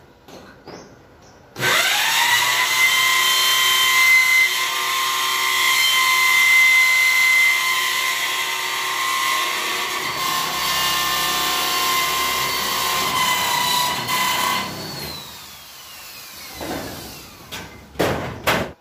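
Hand-held power drill driving into the steel roof framing under the corrugated roof sheets. It spins up sharply, runs steadily under load for about thirteen seconds and winds down. Near the end come a few short bursts.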